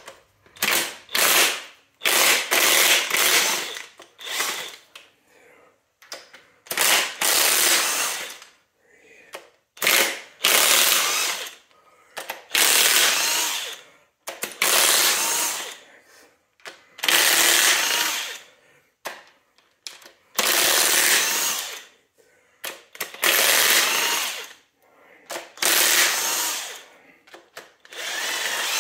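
Cordless DeWalt impact wrench hammering loose the cylinder-head bolts of a Toyota 4A-C engine, one bolt after another. It runs in about a dozen bursts of one to two seconds each, with short pauses between them.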